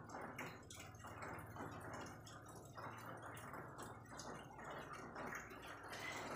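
Faint, wet licking sounds coming in short irregular strokes a few times a second: a kitten grooming another cat's fur with its tongue.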